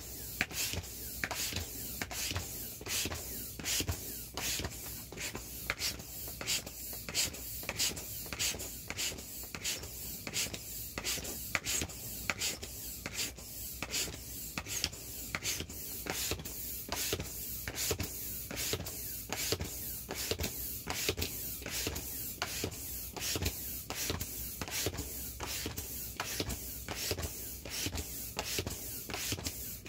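Air pump forcing air through a hose into the wheel of a vinyl inflatable ATV, in short, even pulses about two a second.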